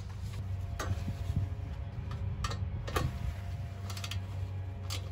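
Socket ratchet wrench clicking irregularly in short spurts as it tightens a nut on sheet metal, over a steady low hum.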